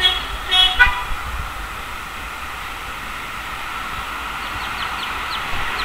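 Outdoor background: a steady hiss with short, high, falling chirps repeating every half second or so. In the first second there are two brief, louder calls with several pitches.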